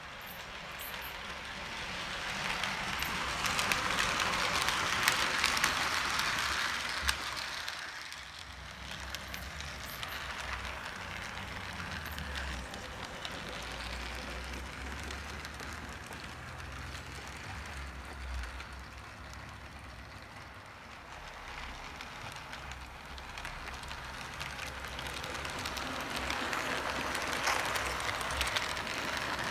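H0-scale model train, a diesel locomotive hauling freight wagons, running along the track with a steady rolling rumble and a low motor hum. It grows louder twice as the train passes close, a few seconds in and again near the end.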